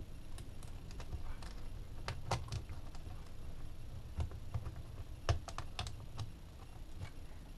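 Light, scattered clicks and rustles of hands handling electrical wire and cable while connecting a wire end at a terminal, with a small cluster of clicks about two seconds in and several more between four and six seconds.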